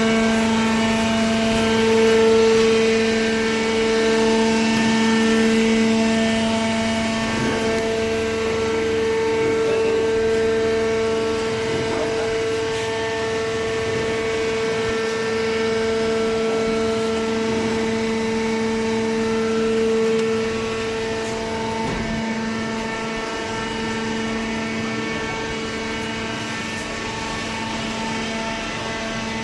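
Baler machine for craft paper running: a steady mechanical hum with strong held tones, joined now and then by a few faint knocks.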